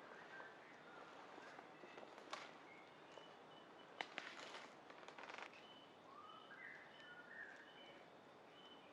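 Faint forest sounds: scattered rustling and crackling of branches and leaves, with a sharp snap about four seconds in. Birds call over it: a short high chirp repeated every second or so, and one warbling call near the end.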